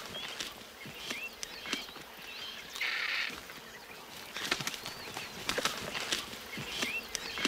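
Spotted hyenas and vultures feeding together at a carcass: scattered knocks and scuffling, wing flaps, and short high chirps, with a brief harsh hiss about three seconds in.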